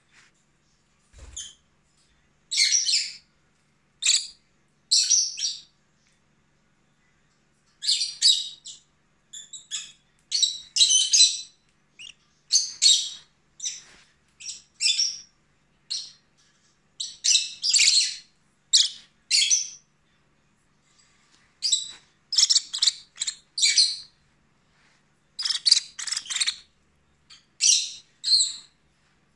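Small pet parrot chirping in short runs of quick, high chirps, with brief pauses between the runs.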